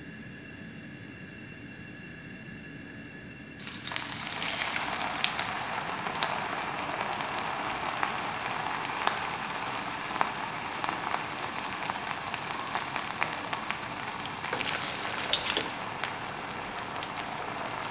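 Food deep-frying in a pan of hot oil, sizzling and crackling. The sizzle starts suddenly about four seconds in, after a low steady hum, and has a louder flurry of pops about three seconds before the end.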